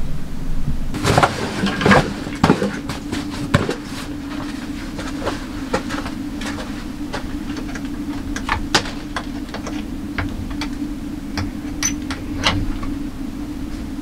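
Scattered sharp clicks and knocks, denser in the first few seconds, over a steady low hum.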